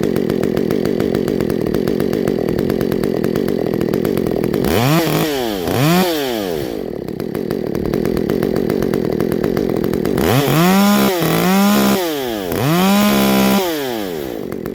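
Ported Stihl MS194T two-stroke top-handle chainsaw idling, then blipped twice quickly to higher revs and back. It then revs three times in a row, each held briefly at the same top speed with short dips between, before settling back to idle.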